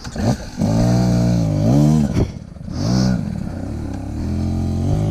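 Off-road motorcycle engine revved in throttle blips, its pitch rising and falling, with a short drop a little past two seconds in and another blip about a second later, then running at a steadier speed.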